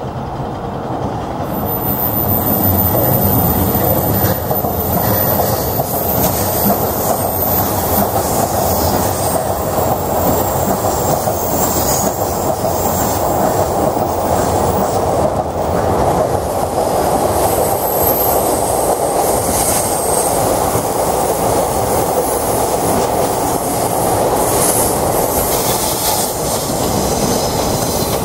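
Container freight train hauled by a DE10 diesel-hydraulic locomotive running past on a curve, its wagon wheels rumbling and squealing on the rails.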